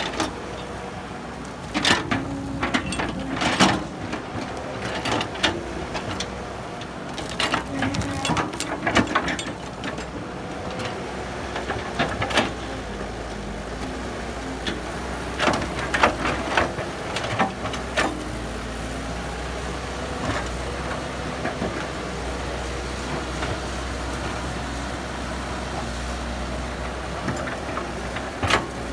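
Heavy diesel machinery running steadily, with a run of sharp metallic clanks and knocks through the first half that then give way to steady engine noise.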